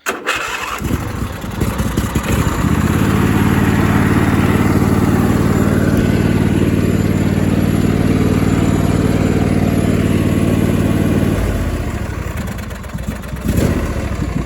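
Old Craftsman riding mower's small gasoline engine catching and starting, picking up speed over the first couple of seconds and then running steadily at high speed. About eleven seconds in it drops back to a lower, rougher speed, with a short knock near the end.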